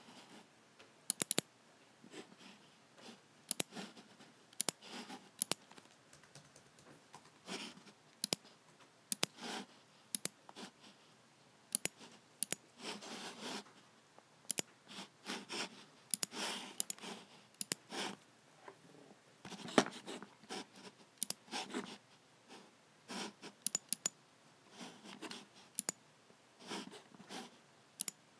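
Logitech (Logicool) G7 computer mouse buttons clicking at an uneven pace, many of the sharp clicks coming in quick pairs, with softer scratchy sounds between them.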